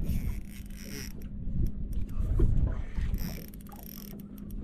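Spinning reel's drag screaming as a hooked fish pulls line off the spool. It comes in two high-pitched bursts, one at the start and a shorter one about three seconds in, with scattered clicks between.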